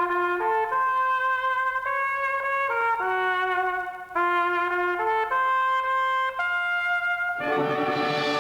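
Animated-film soundtrack music: a solo trumpet plays a melody note by note, and a fuller orchestral chord comes in near the end.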